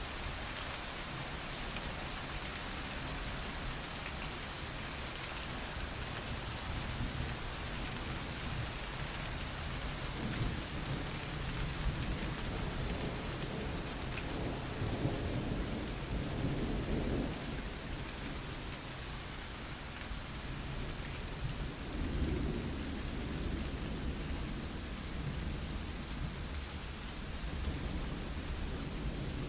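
Thunder rumbling low: a long roll from about ten seconds in to about seventeen seconds, and another around twenty-two seconds in, over a steady hiss picked up through a phone's microphone.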